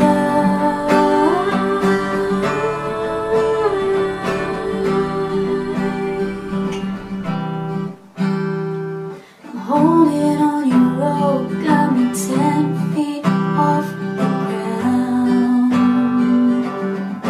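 Acoustic guitar strummed in steady chords, with a woman singing over it at times. The playing breaks off briefly twice around the middle before the chords resume.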